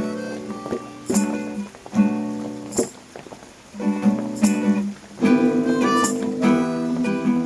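Acoustic guitar strummed in chords, a new strum about every second, with no singing.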